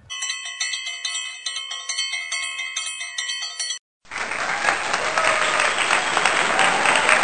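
A bright jingle of bell-like chime notes, struck in quick succession, lasts about four seconds and cuts off. After a brief gap, applause starts and runs on.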